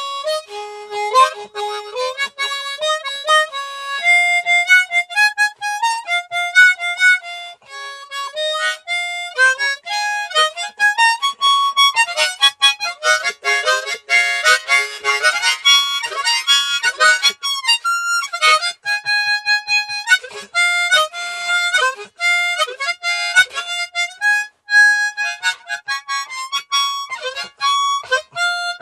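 Suzuki Promaster diatonic harmonica played by hand inside a truck cab: a wandering, improvised line of held single notes and quick note changes, with a denser stretch of chords about halfway through.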